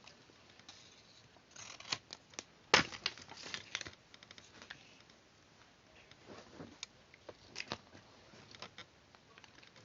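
Paper being handled in the hands: rustling and crinkling with scattered small clicks. One sharp click a little under three seconds in is the loudest.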